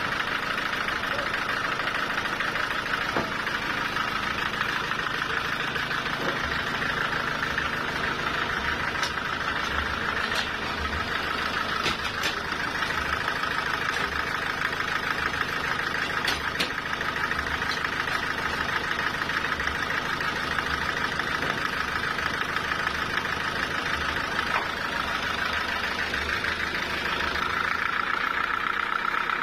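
Sawmill machinery running steadily, an even engine-like hum with a constant higher whine over it and a few faint clicks.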